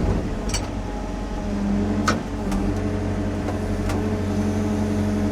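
Sany SY50U mini excavator's diesel engine running steadily under work, with a second steady tone joining about a second and a half in and a few sharp metallic knocks.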